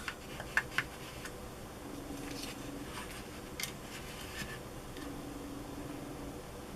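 Small sharp clicks and taps of parts being handled while a butt cap is fitted onto an AK-style rifle stock, with two faint low buzzes of about a second each partway through.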